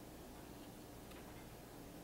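Near silence: steady low room tone, with a couple of faint light ticks as a small piece of cardboard is folded by hand.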